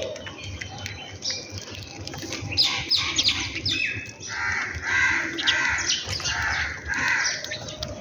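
House sparrows chirping: a quick run of short, high chirps, then about five rougher, longer calls at roughly two a second in the second half.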